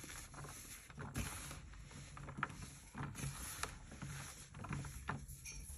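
Reformed floral foam being squeezed and crumbled by hand: soft, irregular crunching and crackling as the crumbs break apart and fall back into the pile, with a few sharper crackles along the way.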